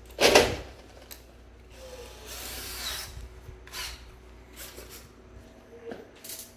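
Handling noise: a plastic blister card of screws and bolts and a paper instruction manual rustling and clattering, loudest in one short burst near the start, with further brief rustles later.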